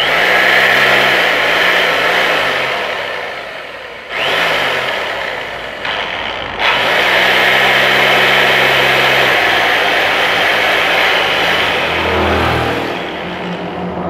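Electric rotary hammer drill running unloaded, switched on abruptly, with two brief dips in speed about four and six seconds in, then winding down near the end. It is being test-run after a repair.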